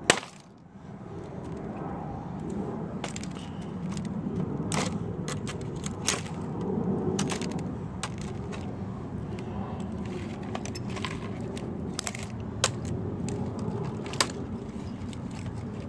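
Plastic laptop case and frame being knocked and pried apart with a claw hammer: scattered sharp cracks, clicks and taps, the strongest just after the start and about six seconds in, over a steady low background noise.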